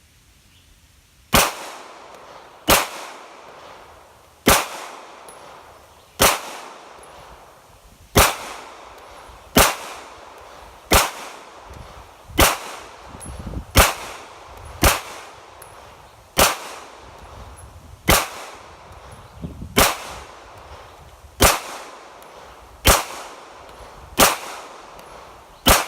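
Sig Sauer P320 pistol fired in a slow, deliberate string of about seventeen single shots, roughly one every second and a half, each with a short ring-out.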